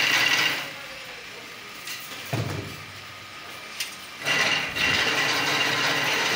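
Chain-link fence weaving machine running with a loud mechanical whir and high steady whine; it drops away about half a second in, a knock comes about two and a half seconds in, and it starts up loud again about four seconds in.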